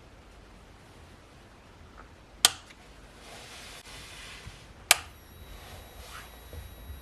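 Two sharp clicks about two and a half seconds apart, from a connection being switched. After the second click a faint, high-pitched whine of several steady tones sets in: noise from a Truetone 1 Spot 9 V DC pedal power supply, audible through an ENGL Cabloader.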